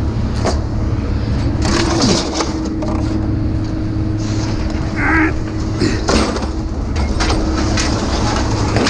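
Steady low engine rumble of idling machinery, with scattered metal clanks and knocks as scrap is handled.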